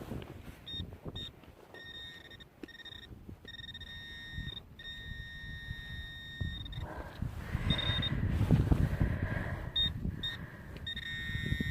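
A metal detector sounds a steady high electronic tone, cutting in and out several times as it sweeps over a buried metal target in the dug soil. Soil scrapes and rustles underneath, loudest in the middle of the stretch.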